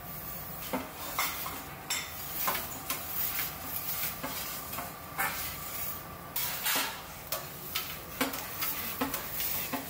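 Metal pizza peel scraping and clinking against the oven floor as a pizza is turned and lifted, in irregular sharp strokes about one or two a second over a steady hum.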